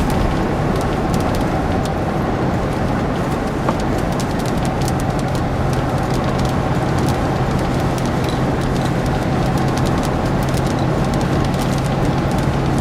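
Steady road and engine noise inside a moving car, with many faint scattered ticks. A low steady hum joins in about five seconds in.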